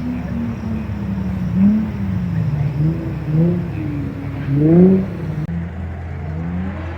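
Nissan Skyline V35's engine revving up and down as it is driven hard through a khanacross course, its pitch climbing twice to loud peaks, then running at a steadier pitch near the end.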